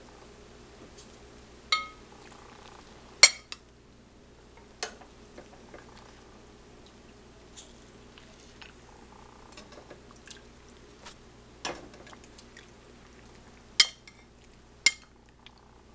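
A serving spoon knocking and clinking against a pot and a ceramic plate as cooked turkey wings are lifted out: a scattered series of sharp clinks, some briefly ringing, the loudest about three seconds in and two near the end.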